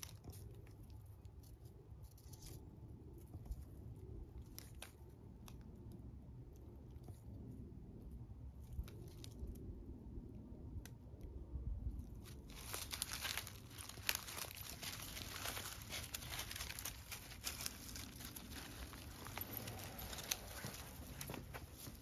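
Dry fallen leaves and bamboo grass crackling and rustling underfoot: scattered crackles at first, then denser, louder crunching and rustling from about halfway.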